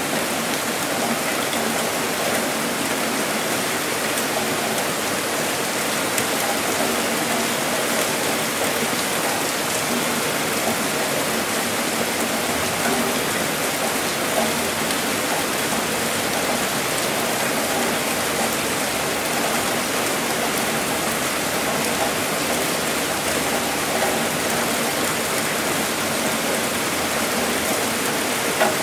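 Heavy rain falling in a steady hiss, with a few faint drop clicks now and then.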